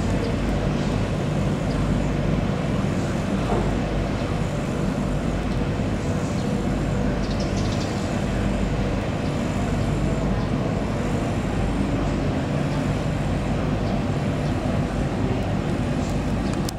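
A boat's engine running steadily, a constant low hum with a noisy rush over it.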